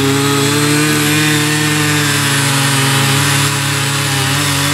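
Small petrol engines of mini rotary cultivators running together under load as their tines churn the soil, a steady drone of at least two engines at slightly different pitches, one of which sags a little in pitch.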